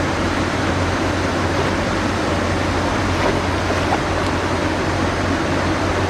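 Steady rushing of creek water, an even noise with no breaks.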